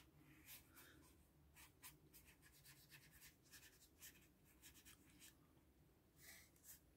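Near silence with faint, irregular scratchy strokes of colouring on paper.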